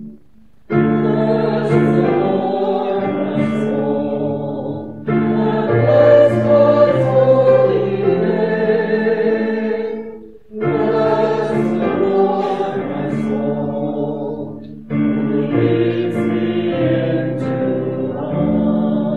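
Choir singing a hymn in four phrases of a few seconds each, with a brief pause for breath between phrases.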